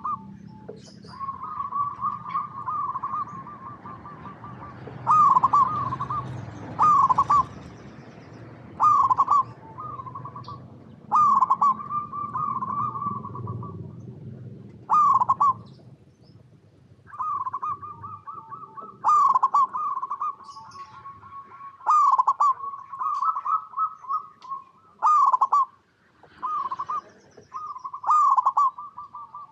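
Zebra dove (perkutut) singing over and over: loud clipped coos and fluttering trills at a steady pitch, a phrase every two to three seconds. Faint quick high chirps of small birds sound between the phrases.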